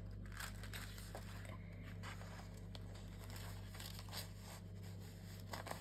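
Sheets of paper and card rustling faintly as they are handled and shuffled, with a few soft crinkles, over a steady low hum.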